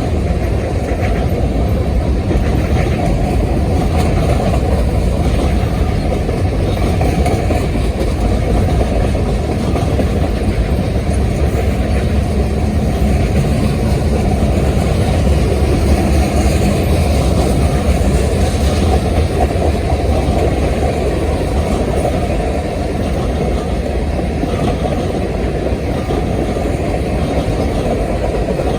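Freight train rolling past, a steady loud rumble with no breaks or horn blasts.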